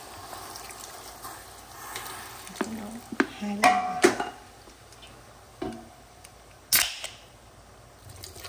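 Kitchen handling at a stainless steel stockpot: a quick run of knocks and short ringing clinks, another a couple of seconds later, and one sharp, loud crack near the end, as seasoning is shaken over pig trotters. Liquid starts pouring into the pot at the very end.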